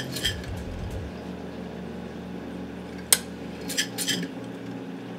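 A single light clink of glass teaware about three seconds in, then two short sniffs, over a steady low room hum.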